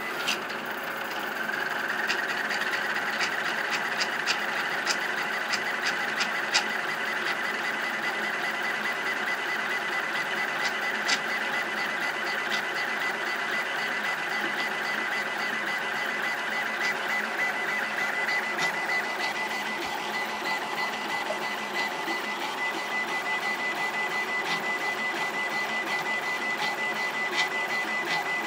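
High-speed 3D printer running a print: a steady mechanical whir with a high whine that sets in about two seconds in, dotted with irregular sharp ticks. The extruder is making noise, pulling back hard on every corner because pressure advance is still set to 0.6 in Klipper.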